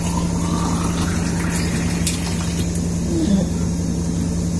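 Wall-mounted kitchen water purifier running: a steady hum from its pump while water runs from its tap into a bottle, rising in pitch as the bottle fills over the first second or two.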